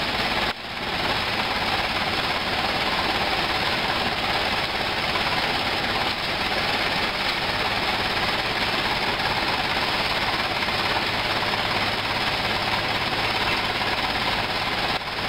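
Mitsubishi Colt dump truck's engine running steadily while the raised tipper bed lowers.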